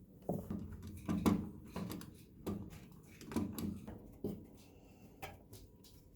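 Irregular knocks and clunks from parts of an opened-up clothes dryer being handled, about seven over a few seconds.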